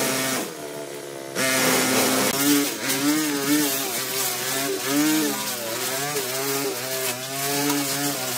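Small petrol engine of a weed-cutting machine running under load, its pitch wavering up and down. It drops back and goes quieter about half a second in, then picks up again a second later.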